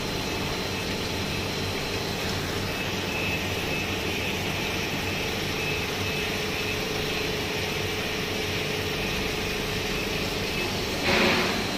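Self-cleaning multi-ring screw press running while dewatering sludge: a steady mechanical hum with a few faint steady tones. A brief, louder burst of noise comes near the end.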